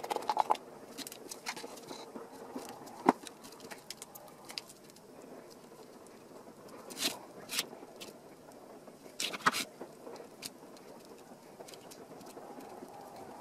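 Latex-gloved hands handling a plastic cup and kneading a soft white silicone mass on a plastic sheet: scattered light clicks, rustles and crinkles, with a sharp tap about three seconds in.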